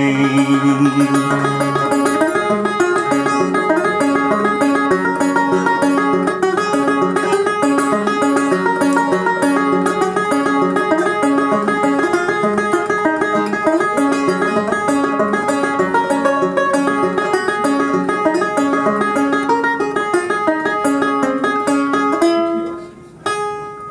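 Solo banjo playing an instrumental passage after the last sung line: a steady run of picked notes and chords. It dies down about two seconds before the end, then one more plucked chord sounds.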